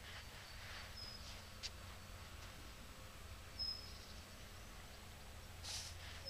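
Faint outdoor woodland ambience: a steady low background hum, with a short, high, thin whistled note three times, a couple of seconds apart, typical of a small bird calling. There is a brief click, and near the end a short rustle.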